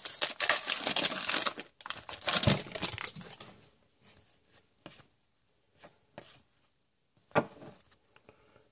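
A trading-card pack wrapper being torn open and crinkled, dense for the first three seconds. After that come a few brief rustles and sharp clicks as the cards are handled.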